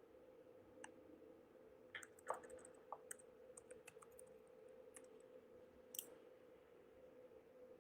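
Near silence: a faint steady hum with a scattering of small sharp clicks, the loudest a little over two seconds in and another about six seconds in.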